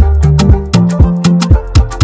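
Background music with a steady beat: bass notes under evenly spaced drum hits, in an Afrobeat style.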